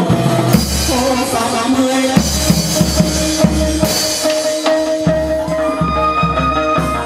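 Chầu văn ritual music for a spirit-possession ceremony: drums beating a steady rhythm under a held, sustained melodic line.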